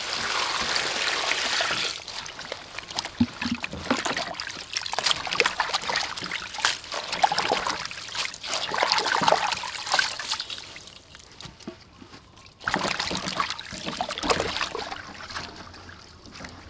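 Water poured into a large steel bowl for about two seconds, then splashing and dripping as lettuce and cucumbers are swished and lifted out of the water by hand.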